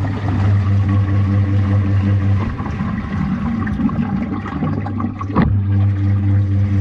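Washing machine running: a steady low motor hum with water churning and sloshing, broken by a couple of brief knocks.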